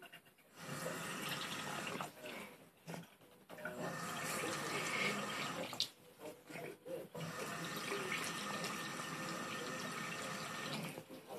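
Bathroom sink faucet running a thin stream of water into the basin, turned on and off so that the splashing comes in three spells of a few seconds each with short quiet gaps between.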